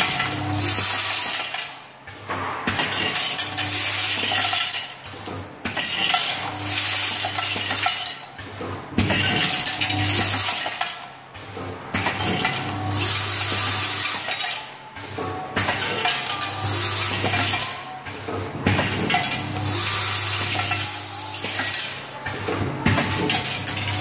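Vibratory bowl feeders running with a steady electric hum, and a dense metallic clinking and rattling of the screws as they are shaken along the bowls' spiral tracks. The hum and rattle swell and fade every few seconds.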